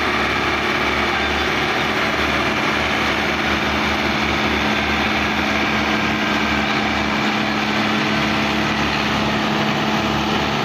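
Diesel tractor engines running steadily as they haul a loaded sugarcane trolley up a ramp.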